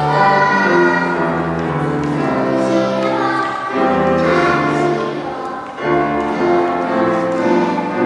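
Children's choir singing in unison, with notes held and changing pitch throughout.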